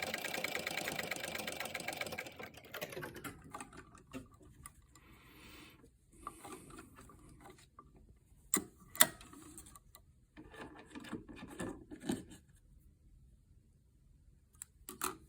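Small electric sewing machine stitching at a steady fast rate, stopping about two and a half seconds in. After that, quiet rustling with a few sharp clicks, the loudest about nine seconds in.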